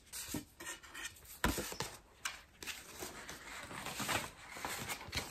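Paper greeting cards and envelopes being handled: soft rustles and scattered light taps, with one sharper tap about a second and a half in.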